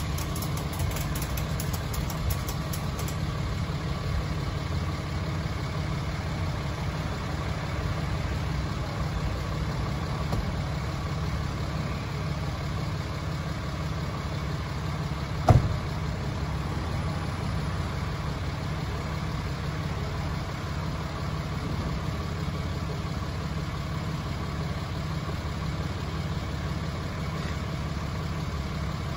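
Tow truck's engine idling steadily during the hook-up of a wrecked pickup. Faint rapid ticking over the first three seconds, and one sharp knock about halfway through.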